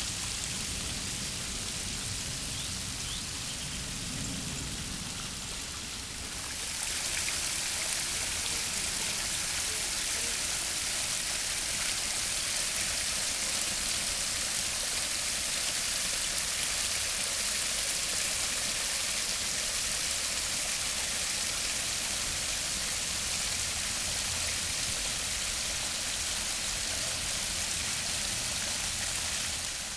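Water splashing and rushing down a rock waterfall into its pools. It steps up louder and hissier about six seconds in, then holds steady.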